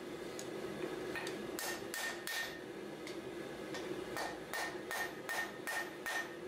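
Hand hammer striking red-hot 80CrV2 steel on an anvil, about two blows a second with a short lull midway, each blow with a brief ring from the anvil. These are the first blows forging in the tip of a knife blade, struck at an angle on the corners of the bar.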